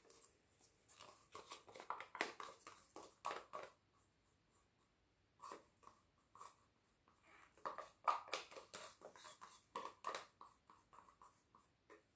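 Faint clicks and light taps of plastic cups being handled and stacked, in two bursts of quick knocks with a short quiet gap between.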